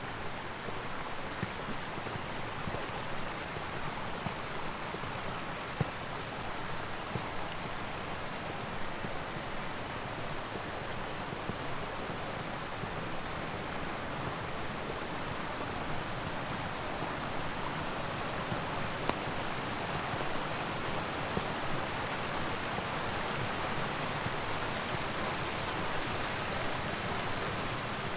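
Steady rushing of running water, getting a little louder in the second half.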